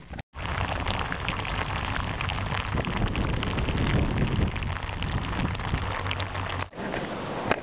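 Steady rain: a dense patter of drops with a low rumble underneath. It starts abruptly just after the start and cuts off about a second before the end.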